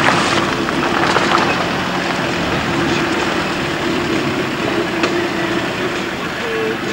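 Car engine running steadily at low speed, heard from inside the car's cabin, with a steady hum.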